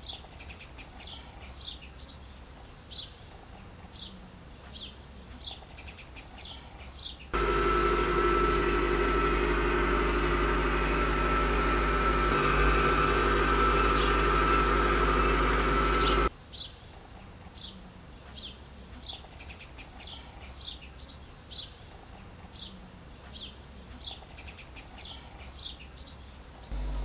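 Short high chirps from a small bird, repeated about twice a second. In the middle, for about nine seconds, a much louder steady motor hum with a constant whine cuts in abruptly and stops just as abruptly.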